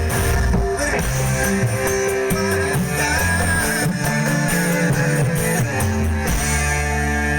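Live dangdut band music, an instrumental passage led by guitar over a steady bass line.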